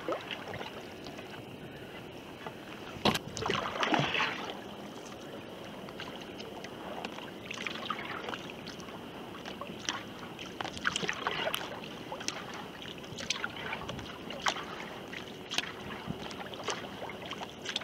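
Kayak paddling with a Greenland paddle: irregular splashes and drips of water off the blade on each stroke, the loudest about three to four seconds in, over a steady hiss of water and wind.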